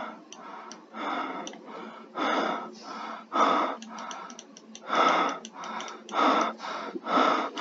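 A person breathing heavily close to the microphone: about six loud, noisy breaths roughly a second apart, with a few faint clicks between them a little past the middle.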